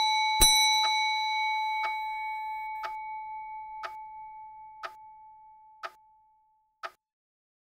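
A bell struck once about half a second in, the last of a quick series, its ring fading away over about six seconds, with a clock ticking about once a second throughout.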